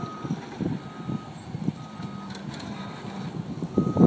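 Forklift reversing alarm beeping: one steady-pitched beep about once a second, over a low, uneven rumble that gets louder near the end.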